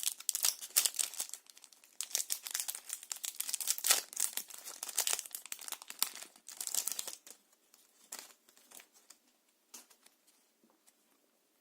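Foil wrapper of a Yu-Gi-Oh booster pack being torn open and crinkled, a dense crackling rustle for most of the first seven seconds, thinning to a few scattered light rustles and clicks before it dies away.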